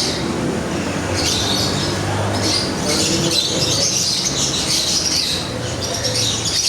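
Many aviary birds chirping and squawking at once, their calls overlapping without a break, over a steady low hum.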